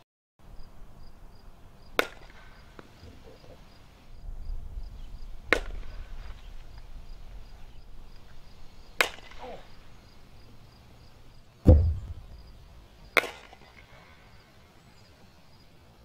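Softball bat hitting softballs in batting practice: four sharp cracks about three and a half seconds apart, with one louder, deeper thump between the last two.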